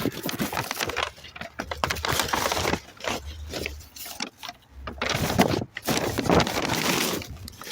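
A cardboard box being crushed and flattened by hand, crackling and crinkling in three long spells with short pauses between.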